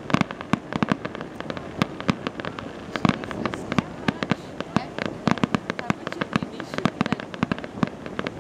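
Fireworks display: aerial shells bursting and crackling in a fast, irregular run of sharp bangs, several a second.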